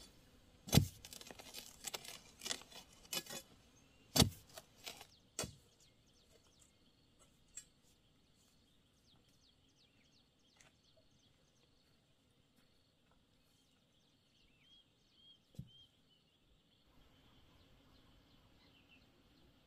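Hoe chopping into garden soil: a run of sharp strikes in the first five seconds, the loudest about one, four and five seconds in. After that it is very quiet, with faint bird chirps.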